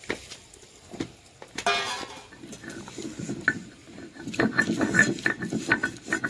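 Coriander leaves being ground on a shil-nora, a flat stone slab worked with a hand-held grinding stone: a few separate knocks, then from about three seconds in a rhythmic, gritty scraping as the stone is rocked and rubbed back and forth over the leaves.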